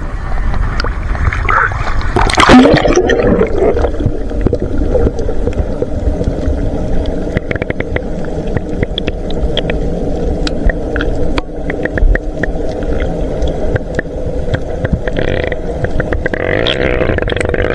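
Underwater sound from a submerged action camera: a splash as it goes under about two and a half seconds in, then the steady drone of a boat's motor carried through the water, with scattered small clicks and bubbling.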